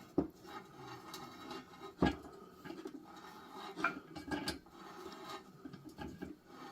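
Hand tools working on an engine block: scattered small metal clinks and knocks with some scraping between them, the sharpest knock about two seconds in.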